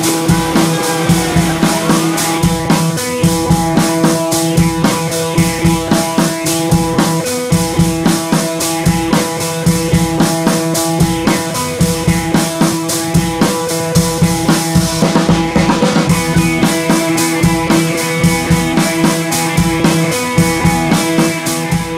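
Background music with a steady drum-kit beat over held notes.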